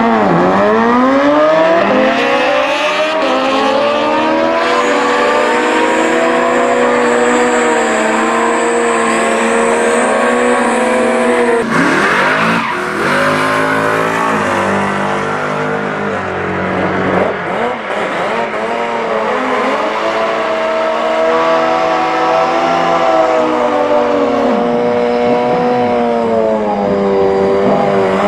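Sport-bike engines at a drag strip: a Suzuki Hayabusa drag bike and a Kawasaki Ninja H2 pull away hard at the start, pitch falling with each shift. About 12 seconds in the sound changes to a modified Suzuki GSX-R1000R revving up and down through a burnout, its rear tyre spinning.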